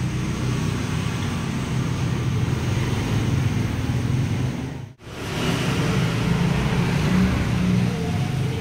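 Steady low rumbling background noise, broken by a brief sudden dropout about five seconds in.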